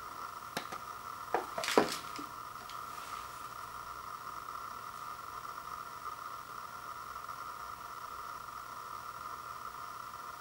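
A few light knocks as an instant noodle cup and a small ceramic bowl are set down on a wooden table, clustered between one and two seconds in. After that there is only a steady background hiss.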